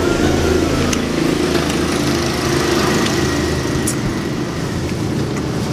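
An engine running steadily, a low even drone, with a few faint clicks over it.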